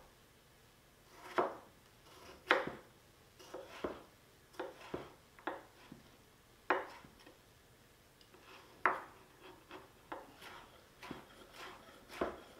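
Chef's knife cutting Galia melon on a wooden cutting board: irregular knocks of the blade striking the board as the melon is sliced into strips and diced, a few strokes louder than the rest.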